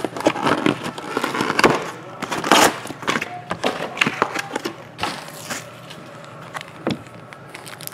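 Crinkling and crackling of plastic and foil trading-card pack wrappers being handled and opened, with irregular sharp clicks and rustles, busier at first and quieter in the last couple of seconds.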